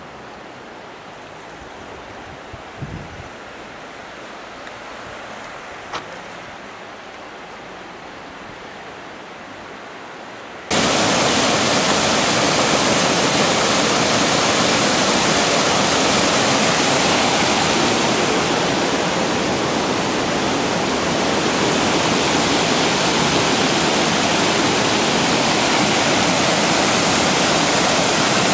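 Water pouring over a stone river weir: a steady, loud rush that starts abruptly about ten seconds in. Before it, a much quieter background with two brief clicks.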